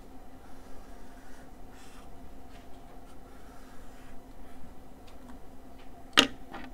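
Felt-tip marker scratching on a paper notepad in short strokes as a box is drawn, over a faint steady hum. A sharp knock comes near the end.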